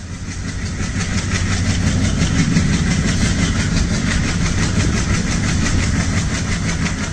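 Train running steadily: a deep rumble with a rapid, even beat, swelling up over the first second.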